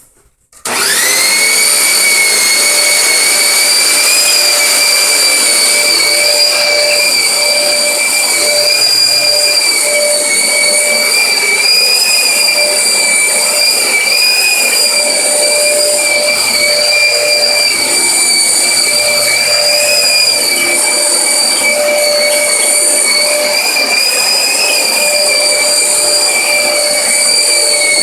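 Hoover WindTunnel Dual V bagless upright vacuum switched on about half a second in, its motor spinning up within a moment to a loud, steady high-pitched whine that holds without a break.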